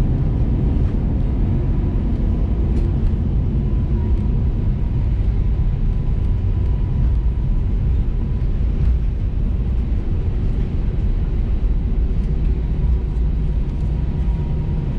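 Cabin noise of an Airbus A321 taxiing after landing, heard from a window seat beside the wing: a steady low rumble of the engines at idle and the wheels rolling. A faint steady whine fades out about eight seconds in.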